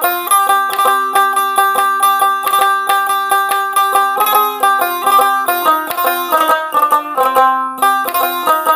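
Background music: a fast tune of quickly plucked string notes over held chords.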